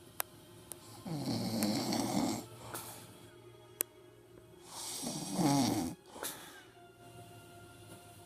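A person snoring: two long snores, each about a second and a half, some four seconds apart, the second louder.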